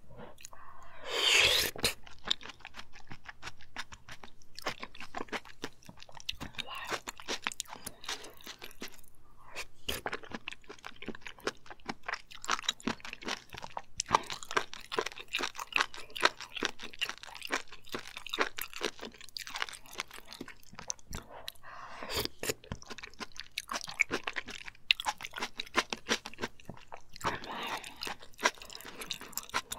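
Close-miked chewing and wet mouth sounds of someone eating abalone rice porridge (jeonbok-juk) by the spoonful, biting into slices of abalone, with a few louder stretches about a second in and toward the end.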